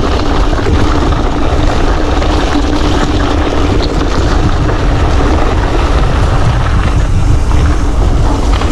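Wind buffeting the microphone as a mountain bike rolls along at speed, with a steady hum underneath.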